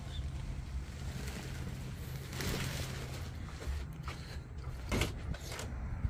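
A steady low mechanical hum over a faint noisy background. The hum fades out a little past halfway, and a couple of light knocks come near the end.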